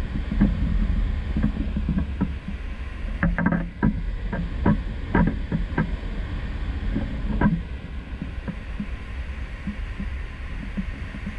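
Steady low rumble of wind and a moving ship buffeting a balcony-mounted action camera at sea, with irregular knocks and taps that thin out in the last few seconds.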